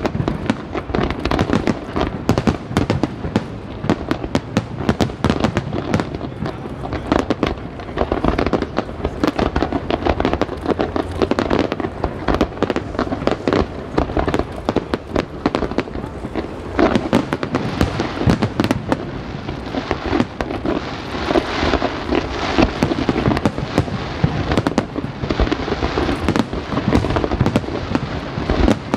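Aerial fireworks bursting in rapid succession, many overlapping bangs a second without a pause.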